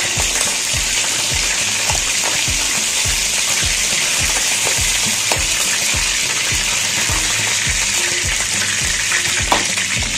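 Hot oil sizzling steadily in a karahi as fried chicken pieces are lifted out of it, with a soft low pulse about three times a second underneath and a single sharp click near the end.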